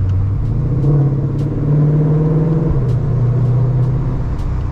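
Ford Shelby GT500's supercharged 5.2-litre V8 running on the road, heard from inside the car. Its pitch rises about half a second in, holds, then drops back a little before three seconds.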